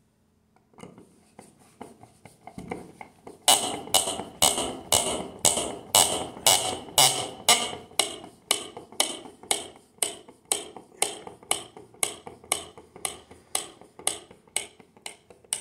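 A long screw being driven by hand with a screwdriver through a wooden wall plate, giving a sharp creak with each twist, about two a second. The creaks start faint, turn loud about three and a half seconds in, and slowly weaken.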